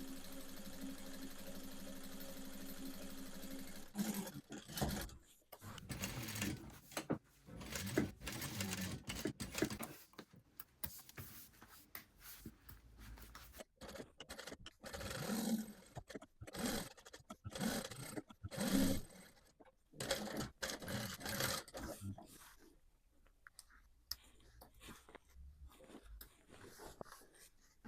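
Electric sewing machine running steadily for about four seconds, then stopping. After it come scattered short handling sounds: rustles, scrapes and clicks, growing quieter near the end.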